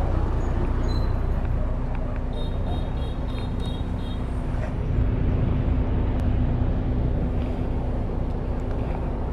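A coach bus's diesel engine idling close by: a steady low rumble with a constant hum. About two seconds in comes a short run of high beeps.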